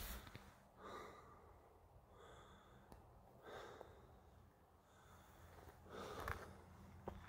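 Faint breathing of a man climbing a steep rocky trail, several slow breaths in a row, with a few soft footsteps on loose stones.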